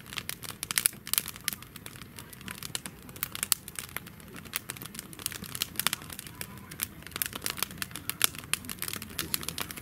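Firewood burning in a fire pit, crackling with many irregular sharp snaps and pops over a low rustle.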